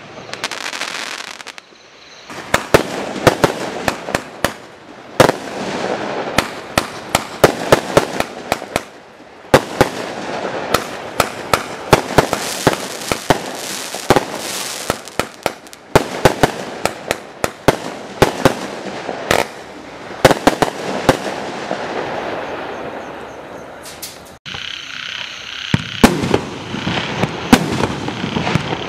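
Primed Pyrotechnics 1.3G barrage cakes (Aces High, Snake Eyes, Joker's Wild) firing in quick succession: rapid sharp bangs of shots launching and bursting, with crackle between them. About 24 seconds in the sound breaks off suddenly, and the next cake comes in with a steady high tone under its bangs.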